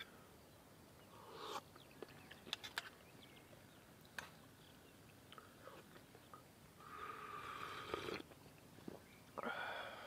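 Soup being eaten from a metal mug with a spoon: a few light clicks and taps of the spoon on the mug, then two longer sipping sounds near the end.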